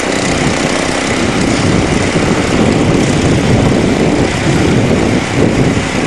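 Two small garden-tractor engines, a John Deere and a Speedex, running hard under load as the two tractors pull against each other on a chain. The engine noise is loud and steady throughout.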